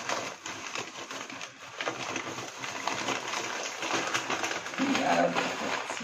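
Plastic bag holding dried fish rustling and crinkling as it is handled and opened. A short voiced sound comes about five seconds in.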